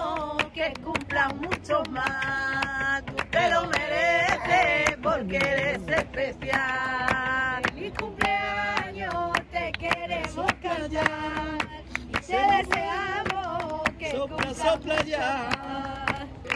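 Voices singing a flamenco-style song with rhythmic handclaps (palmas) running through it.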